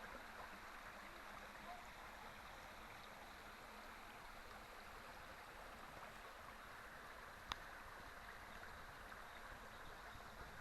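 Faint, steady rushing noise with no distinct events, broken once by a single sharp click about seven and a half seconds in.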